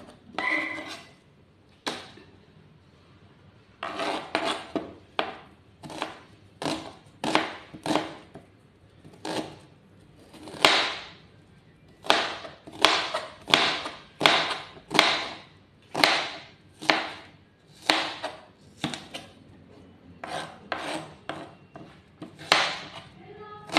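Kitchen knife chopping red onion on a plastic cutting board: a long run of short knocks, about two a second, with a pause of a couple of seconds near the start.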